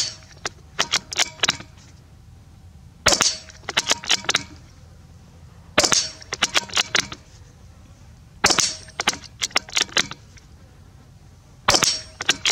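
Marlin XT-22 bolt-action .22LR rifle firing five shots, about one every three seconds. Each shot is followed within a second by a quick run of four or five sharp clicks as the bolt is worked to chamber the next round.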